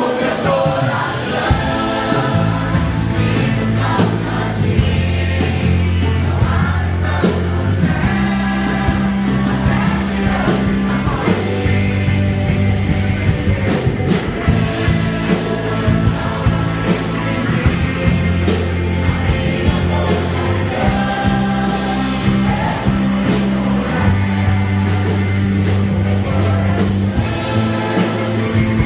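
Christian gospel group singing a worship song with several voices over band accompaniment, with sustained low notes and a steady beat.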